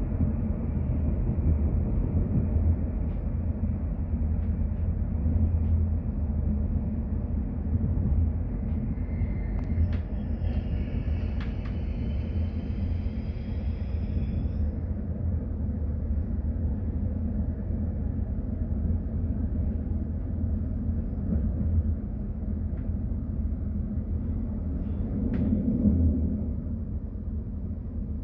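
Passenger train running along the track, heard from inside the carriage: a steady low rumble of wheels and running gear. About a third of the way in, a faint high squeal lasts some five seconds.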